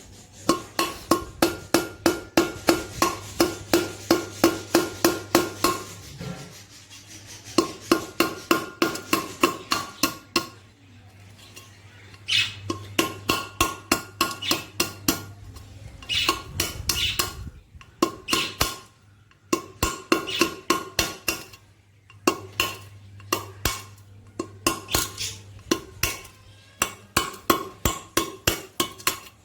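Rapid, regular strokes of a hand tool on a hard object that rings at a few steady pitches, about three to four strokes a second, in runs of several seconds with short pauses between them.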